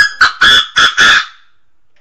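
Chinese francolin calling: one loud, harsh phrase of about five quick notes lasting just over a second, then a pause before the next phrase.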